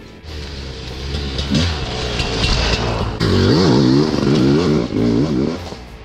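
Sherco dirt bike's engine revving up and down under load while climbing over rocks. It grows much louder about three seconds in as the bike passes close.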